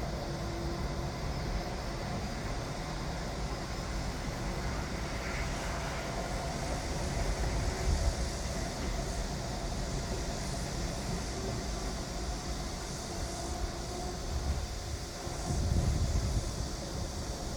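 Construction-site machinery noise: a steady low mechanical rumble with a faint hum. It swells louder about eight seconds in and again near the end.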